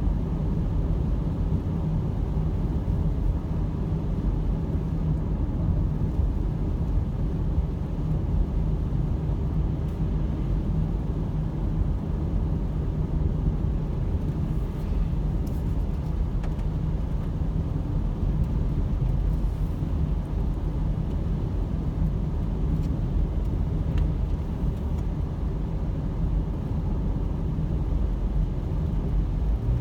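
Steady road noise inside a moving car: engine and tyres running on a rain-wet road, an even low rumble with no change in pace.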